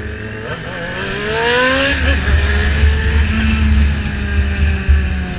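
Motorcycle engine accelerating, its pitch rising for about a second and a half, then holding fairly steady while riding. Wind rumble on the microphone comes in about two seconds in.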